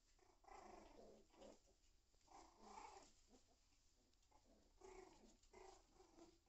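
Schnauzer and poodle puppies making faint vocal noises as they play-fight, in three short bouts of about a second each.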